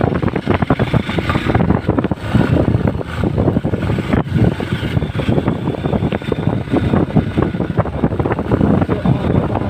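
Hero XPulse 200 single-cylinder motorcycle engine running on a rough off-road trail, with many short knocks and rattles from the ride and wind buffeting the microphone.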